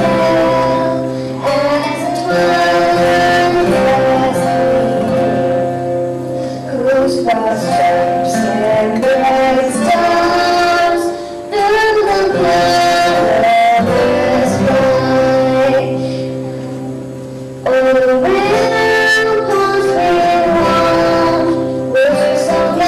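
A young girl singing a song into a microphone, with a man playing an acoustic guitar as accompaniment. The singing thins out for a few seconds about two-thirds of the way through, then comes back in.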